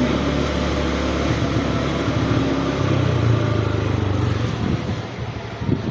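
Motor vehicle engines running: a steady low engine hum whose note shifts about three seconds in, then fades near the end.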